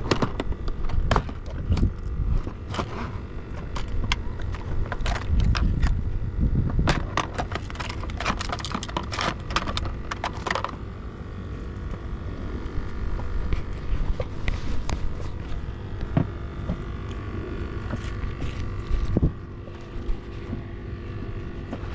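Clicks, knocks and rattles of fishing tackle being handled in an open plastic tackle box while a line is rigged, over a low rumble. The clicking is dense at first and thins out about halfway through, leaving a steadier low hum with occasional knocks.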